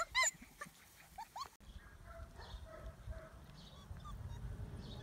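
Four-week-old longcoat German Shepherd puppies whining and yipping: a quick run of short, high-pitched cries, each rising and falling, that thins out after about a second and a half. After that there is only a low rumble with a few faint whimpers.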